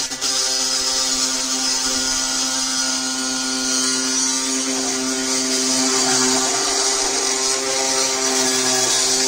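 Oscillating multi-tool cutting into the thin steel-sheet housing of a sealed B&W Protax 375 coax switch. It bites in sharply at the very start, then runs steadily with a bright hiss of blade on metal.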